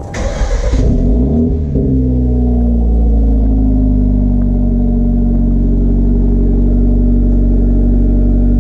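A car engine starting: about a second of cranking, then the engine catches with the revs flaring and falling for about a second. It then settles into a steady idle.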